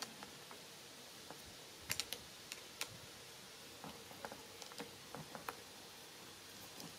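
Irregular small clicks and ticks of a screwdriver turning a small screw on a Dragon spinning reel's rotor, the tip and the reel's metal and plastic parts tapping, with a cluster of clicks about two seconds in and a run of lighter ones later.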